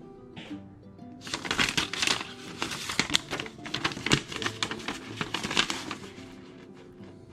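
Packaging crinkling and rustling as it is handled, from about a second in until about six seconds, over background music.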